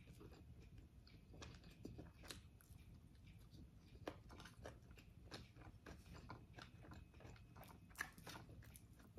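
Faint chewing and biting of food, with soft irregular crunches and small mouth clicks; two crunches stand out, about four seconds in and near the end.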